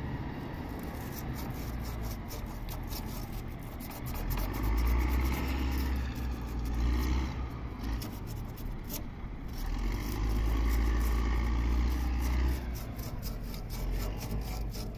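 Scraping and rubbing on the freshly cut end of a copper refrigerant pipe as it is cleaned by hand to prepare it for brazing. Two spells of low rumble, about 4 s and 10 s in, are the loudest sounds.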